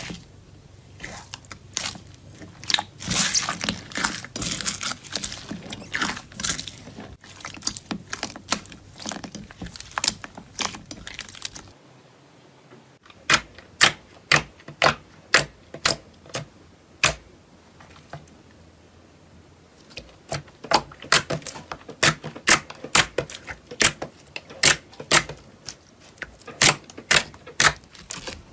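Slime being handled: a stretch of crackling and crunching as it is squeezed, then runs of sharp clicking pops, about two a second, as air pockets burst under the fingers.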